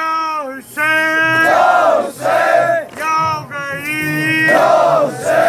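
Male mourners chanting a Shia Ashura lament (noha) in unison, answering a lead chanter who holds long, steady sung notes; the lead voice and the crowd alternate in several short call-and-response phrases.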